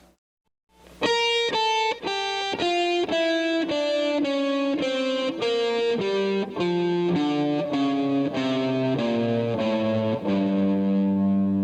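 Electric guitar playing a scale one note at a time, a G Dorian mode mixed with blues scale notes. It steps down from high to low at about two notes a second, and the last low note is held.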